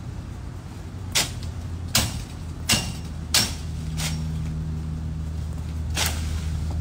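Machete chopping into leafy branches: six sharp swishing strikes, the first five less than a second apart and the last after a short pause, over a steady low hum.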